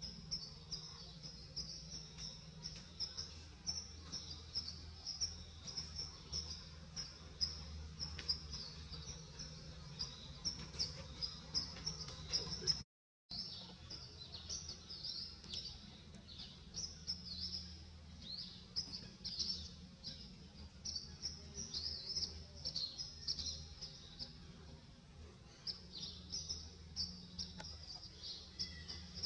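Dense natural chorus of high-pitched chirping from birds and insects, many short chirps a second over a low steady hum, cutting out for a moment about halfway through.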